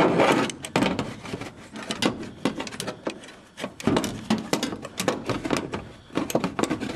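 Irregular knocking, scraping and clattering of a block and tubing being worked into place inside a metal aircraft wing around the spar.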